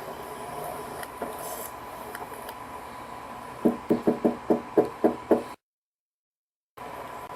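Rapid knocking on a door, about eight knocks in under two seconds, over the steady hiss and faint hum of body-camera audio. The sound then cuts out completely for about a second.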